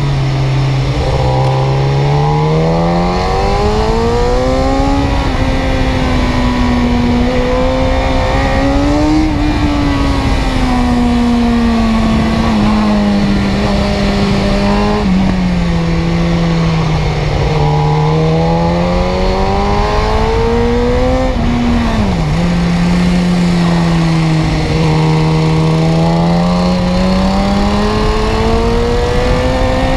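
Car engine running under way, its note rising and falling smoothly over several seconds as speed changes, with a quick dip in pitch about two-thirds of the way through.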